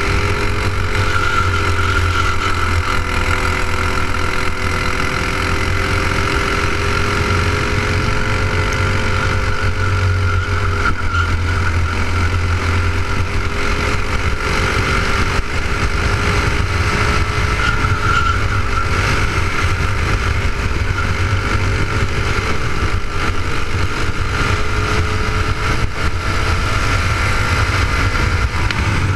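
Clone-class racing kart's single-cylinder four-stroke engine at race pace, heard close up from on board the kart, its pitch rising and falling gently as the driver lifts and gets back on the throttle.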